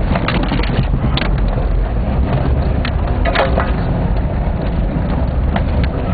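Jeep driving over a rough trail: a steady low engine and road rumble with a few sharp knocks and rattles as it bumps along.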